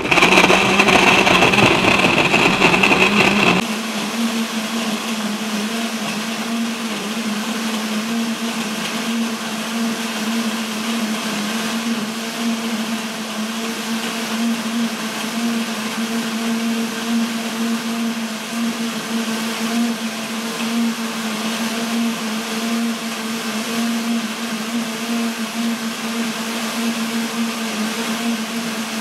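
Countertop blender running with eggs, oil and orange pieces in the jar. It is loud and rough for the first three to four seconds, then settles into a steadier, slightly higher-pitched hum once the fruit is broken down into a liquid batter.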